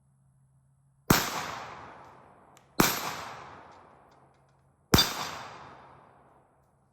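Girsan 1911 pistol fired three times, the shots about two seconds apart, each sharp report followed by a long echo fading away.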